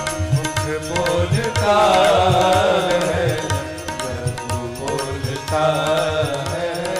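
Hindi devotional bhajan music: tabla keeping a steady rhythm under long, wavering melodic notes, strongest about a second and a half in and again near the end.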